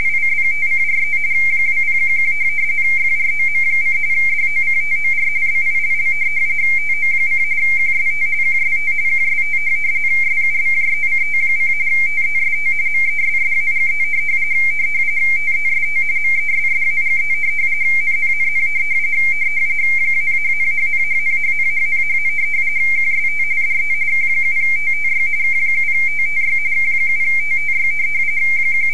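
Radioteletype (RTTY) audio: a frequency-shift-keyed signal that warbles rapidly between two close tones a little above 2 kHz, sending Baudot text, here a test message being transmitted over the Internet teletype stream. A faint low hum sits underneath.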